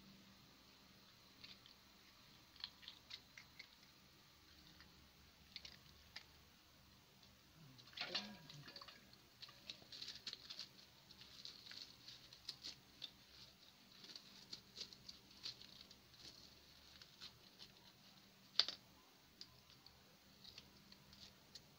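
Faint, scattered small clicks and crinkles of wet hands handling raw tilapia and a plastic bag while gutting the fish, with a louder rustle about eight seconds in and a sharp click late on.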